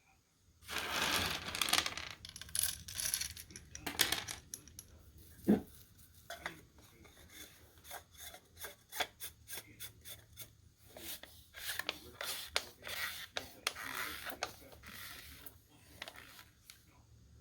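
Close handling of hard, small objects: rustling and scraping with many quick, irregular clicks and taps, fitting dry corn kernels being rubbed and dropped off a sample ear while it is prepared for a moisture test.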